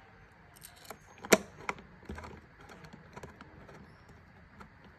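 Hands handling the parts of a smart lock: a string of small clicks and knocks, the loudest a sharp click about a second and a half in, followed closely by a second one.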